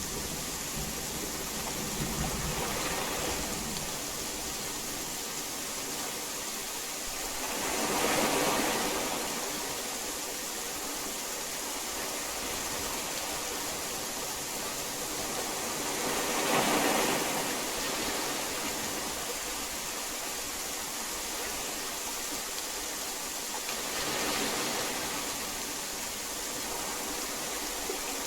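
Heavy rain falling as a steady, even hiss, swelling louder three times for a few seconds each, about eight seconds apart. Faint steady tones sit underneath.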